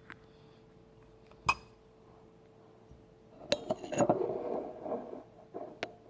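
A utensil clinking and scraping against a bowl while dish-soap-and-salt slime is mixed: a single click about a second and a half in, then a busy stretch of clinks and scraping in the middle, and two light clicks near the end.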